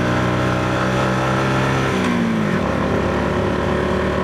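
Motorcycle engine running steadily under way, its note dropping about halfway through and settling lower.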